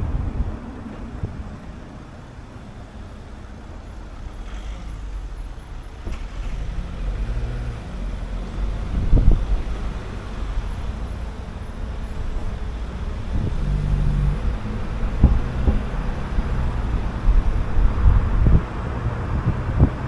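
Car driving in town: low engine hum and road rumble, quieter for a few seconds after the start and then building again, with a few short thumps.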